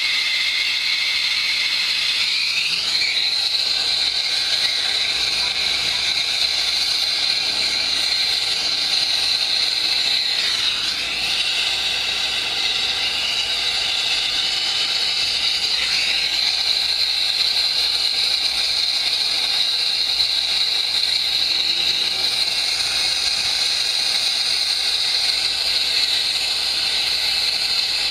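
Acetylene torch flame burning with a steady loud hiss while heating a copper pipe joint for soldering; the tone shifts briefly a few times as the flame is moved.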